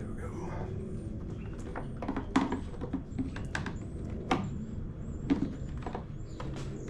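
Scattered sharp clicks and knocks of hand tools and plastic parts being handled during work on a backpack blower's fuel system, over a steady low hum; the three loudest clicks come about two, four and five seconds in.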